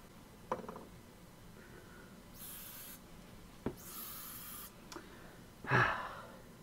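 Two short hisses of an aerosol spray, the second a little longer, sprayed under the arm as a stand-in for a shower. A short, louder whoosh follows near the end.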